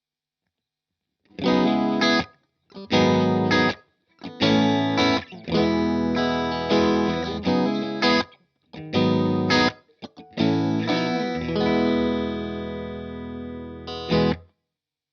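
Electric guitar played through a Strymon Iridium amp modeller: after a short silence, a phrase of chord stabs broken by abrupt silent stops. Near the end one chord is left to ring and slowly fade, followed by a last short stab.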